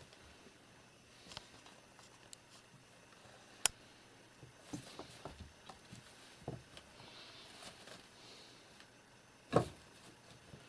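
Two kittens scuffling and pouncing on a carpet around a straw broom: scattered soft paw taps and rustles. There is a sharp click about three and a half seconds in and a louder knock near the end.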